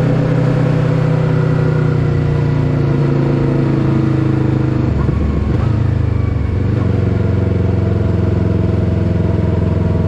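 Yamaha YZF-R3's parallel-twin engine running through an Akrapovič full-system exhaust, heard from the rider's seat. About halfway through, the engine note drops and settles lower as the bike slows down.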